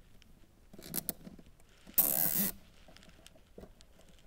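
A nylon zip tie being pulled tight, with a short ratcheting zip about two seconds in. Fainter clicks and handling of the plastic funnel come just before it.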